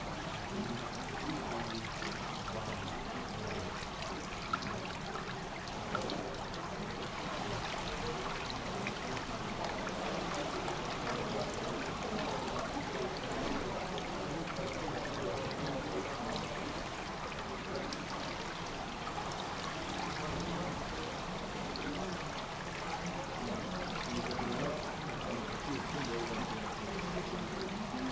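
Water trickling steadily into a swimming pool's overflow gutter.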